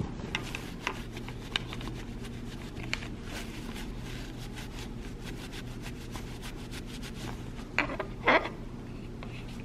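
Light clicks and rubbing of plastic sunglasses frames being handled after their lenses have been snapped in, over a steady low hum. There are a couple of louder rustles near the end.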